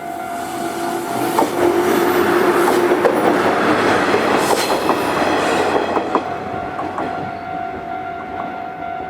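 A Nankai electric train passing over a level crossing, rising to its loudest about two seconds in and fading after about six seconds, with wheels clicking over the rail joints. A steady ringing tone from the crossing's warning bell sounds throughout.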